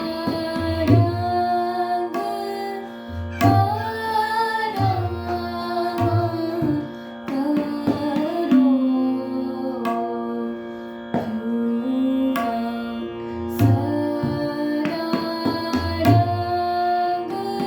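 Hindustani classical khyal singing in Raag Yaman: a woman's voice holding and gliding between long notes over a steady drone. Tabla strokes keep ektaal at a medium tempo.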